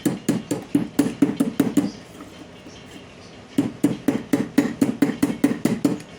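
Quick, light metal-on-metal taps driving a new shaft bush into a table fan motor's end plate, using a spare shaft as a drift. The taps come about five a second in two runs, with a pause of under two seconds between them.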